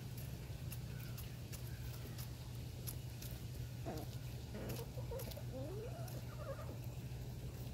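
Easter Egger hens pecking at grain and fruit on paving stones, with sharp beak taps scattered throughout. A run of soft, short clucks comes from about four seconds in until near the end. A steady low hum runs underneath.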